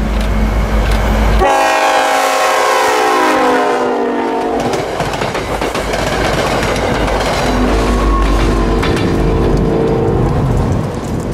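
NJ Transit push-pull commuter train passing close by. The train horn sounds about a second and a half in for some three seconds, its pitch dropping slightly as the front goes past. The wheels then rumble and clatter over the rails, and the diesel locomotive at the rear goes by near the end with a steady engine drone.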